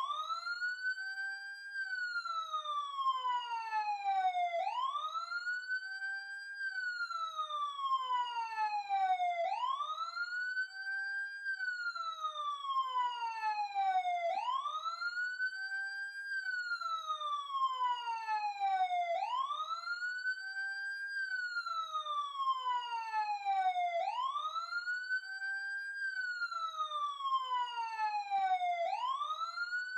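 Police siren in its wail pattern: the tone rises quickly, holds briefly at the top, then falls slowly, the cycle repeating about every five seconds.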